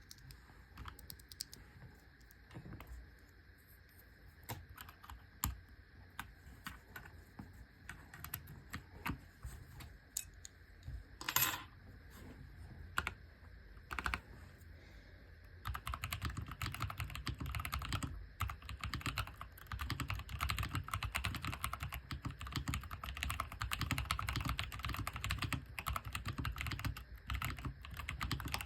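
AJAZZ AK680 mechanical keyboard with stock brown tactile switches being typed on: scattered single keystrokes at first, then steady, fast typing from a little past halfway.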